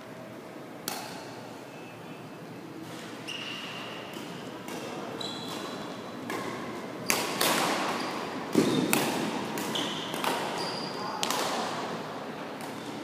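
Badminton rackets striking shuttlecocks, sharp pops that echo in a large sports hall, the loudest about 7 and 8.5 seconds in. Short sneaker squeaks on the court floor and a murmur of voices run between them.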